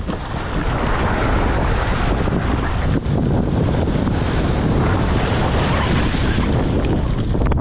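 Breaking surf and whitewater washing around and over an inflatable stand-up paddleboard, with heavy wind buffeting the microphone.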